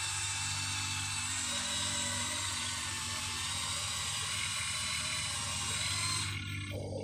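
Electric motors of a Huina 1593 remote-control excavator whining steadily as it works. About six seconds in, the high whine stops and a lower, buzzier motor sound takes over.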